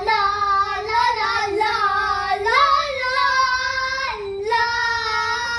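Young girls singing, holding long drawn-out notes with a short break about four seconds in.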